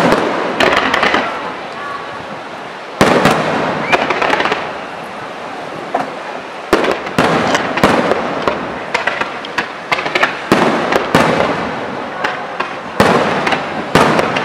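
Aerial fireworks display: shells and comets launching and bursting in a rapid run of sharp bangs, with crackling stars between them. Heavy bangs come at the start, about three seconds in, in a dense cluster through the middle, and again near the end.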